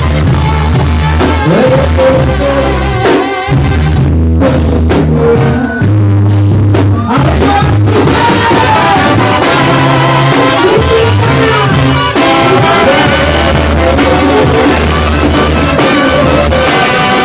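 Loud music played by brass instruments over drums and a deep bass line.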